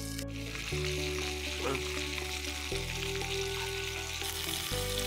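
Bacon and sausage sizzling steadily as they fry in two small frying pans over a wood campfire, with background music chords changing underneath.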